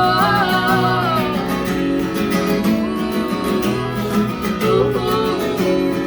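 Live band playing an instrumental break between verses: strummed acoustic guitar and band chords, with a gliding melody line near the start.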